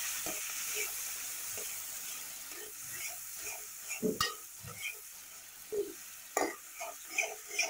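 Ground ginger paste sizzling as it fries in hot sesame oil in a metal kadai, stirred and scraped with a steel spoon. The sizzle fades after the first few seconds, and the spoon's scrapes on the pan come about twice a second near the end.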